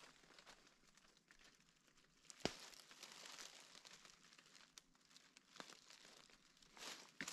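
Faint crackling and crinkling of dry leaves and twigs underfoot, with one sharp snap about two and a half seconds in.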